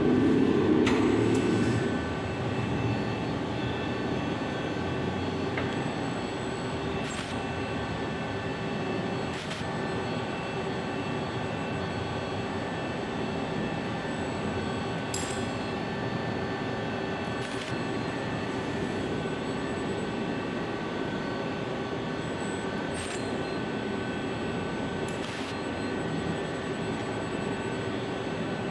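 Ultrasonic plastic-welding cell running: a steady machine hum holding several high and low tones, with a short sharp burst every two to three seconds.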